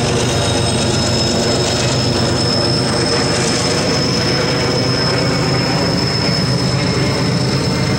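Loaded coal train rolling along the track, its wheels giving a steady high squeal over a constant low rumble.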